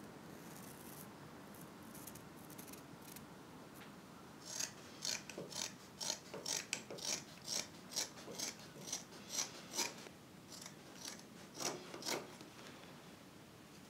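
Scissors snipping through faux fur fabric in a quick run of cuts, about two a second, starting about four seconds in and stopping a couple of seconds before the end.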